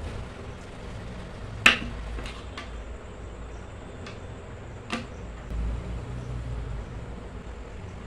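Hard PVC pipe pieces clicking and knocking as they are handled and set down on a table: one sharp click about two seconds in, a few lighter ticks, and another knock about five seconds in, over a low steady rumble.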